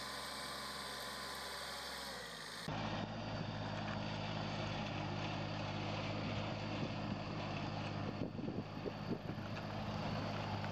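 Mini tractor engines running steadily while pulling plows through soil. About three seconds in, the sound cuts to an Iseki TXG23 compact diesel tractor running under load with a steady, even engine note.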